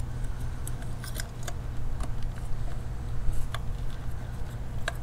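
Small plastic clicks and ticks as an ignition coil pack's electrical connector is handled and pushed onto its terminal, not yet latched, over a steady low hum.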